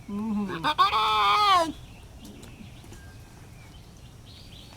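Lion cub giving one drawn-out, bleat-like moaning call lasting about a second and a half, ending abruptly.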